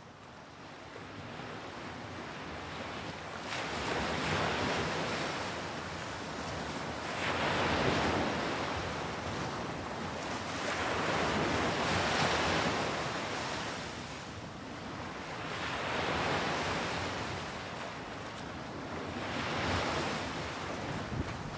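Sea waves washing ashore, the surf swelling and falling back about every four seconds, fading in at the start.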